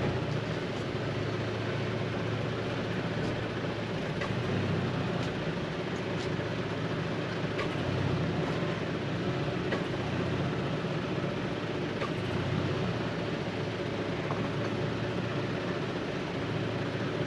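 Toyota Tacoma's engine running steadily at low speed as the pickup crawls along a rocky off-road trail, with a few faint clicks.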